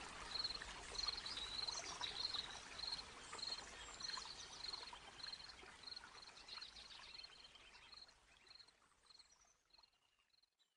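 Faint nature ambience: a high chirp repeating about twice a second over a soft hiss like running water, with scattered bird-like chirps, fading away about eight seconds in.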